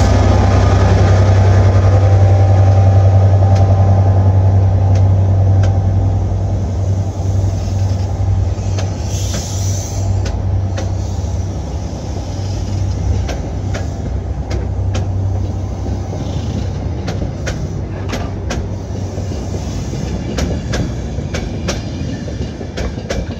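DB Class 67 diesel locomotive's EMD two-stroke V12 engine drumming under power as it pulls away and passes, fading after about six seconds. The passenger coaches then roll by, their wheels clicking over rail joints, with a brief hiss about nine seconds in.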